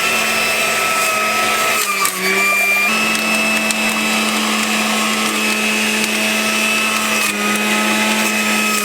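Electric juicer running as celery is fed through it: a steady, loud motor whine whose pitch sags briefly about two seconds in and drops again near the end as it takes load.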